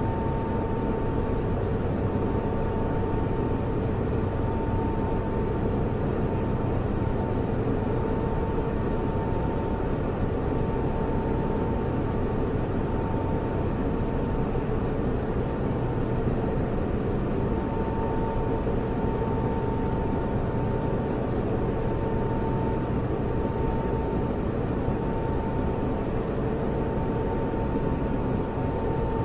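Server fans and cooling running: a steady rushing hum with a faint high tone near the top that comes and goes.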